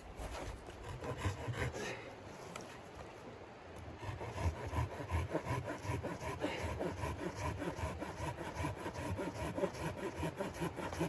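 A small hand saw cutting through a dry, dead branch in quick, even back-and-forth strokes, the blade rasping in the wood. The steady sawing gets going about a third of the way in, after a few scattered strokes.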